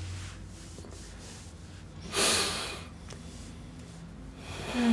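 A woman crying quietly, with a loud sniffling breath about two seconds in and another near the end that catches into a brief sob.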